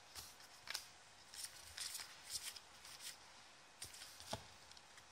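Faint scrapes and soft clicks of basketball trading cards sliding against one another as they are flipped one at a time through a hand-held stack, about eight brief strokes, spaced unevenly.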